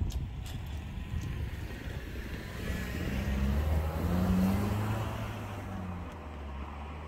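Road vehicle engine approaching and passing, growing louder to a peak about four seconds in and then fading.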